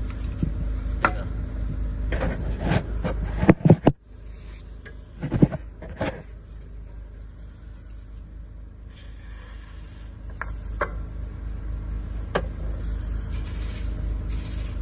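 Scattered knocks and scrapes of handling, the loudest a cluster of knocks about three and a half seconds in and another pair near six seconds, over a steady low machine hum.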